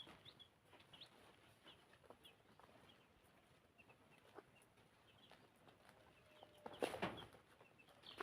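Chickens clucking faintly, with short high peeps scattered throughout and a louder, brief sound about seven seconds in.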